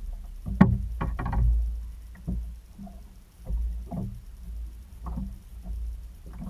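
Small waves lapping and slapping against the hull of a stopped personal watercraft, with uneven wind rumble on the mounted camera's microphone. Scattered knocks and splashes run through it, the loudest about half a second and one second in.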